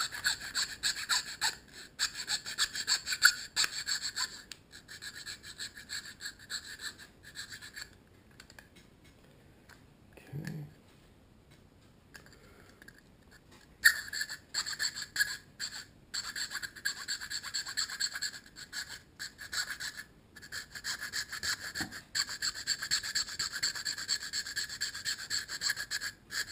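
Small file rasping on the clear plastic of a GoPro housing in quick repeated strokes, smoothing the edge of a hole melted through with a hot scalpel. The filing pauses for several seconds midway, then starts again.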